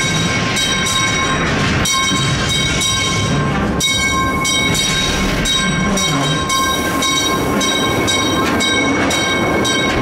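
Mine-train ride cars rolling along their track through a cavern, with a steady rumble, clattering wheels and several steady high ringing tones over it.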